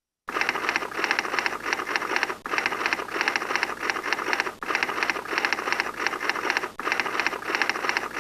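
A rapid, even mechanical clatter of clicks, like a sound effect laid under the title text. It starts just after the opening and repeats in stretches about two seconds long, each ending in a short dip.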